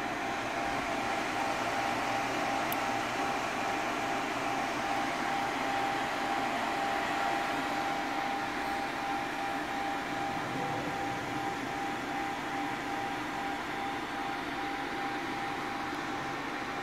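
Electric fan running steadily: an even whir with a constant high hum over it.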